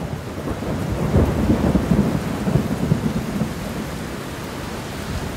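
Low rumbling, crackling noise like rolling thunder, swelling about a second in and slowly fading: a thunder sound effect laid over the end title.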